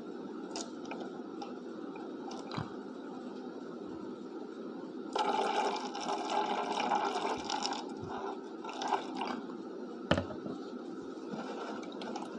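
Water pouring into a glass jar of black-pepper extract for about four seconds, starting about five seconds in, to crash the piperine out of solution. A few light knocks come before it and a sharper one after.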